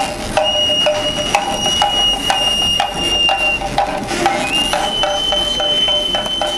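Traditional voladores music: a high-pitched cane flute holding long notes, stepping up to a higher held note about two-thirds of the way through, over steady beats on a small hand drum.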